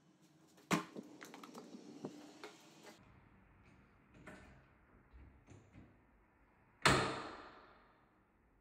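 A door being handled: a latch click and a couple of seconds of light rattling, then about seven seconds in a door shuts with a loud bang that rings out for over a second.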